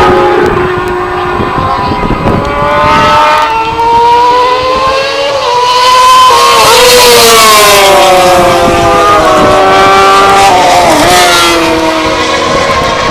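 Superbike engines revving hard, their pitch climbing and dropping repeatedly as the bikes accelerate and shift, loudest about six to eight seconds in.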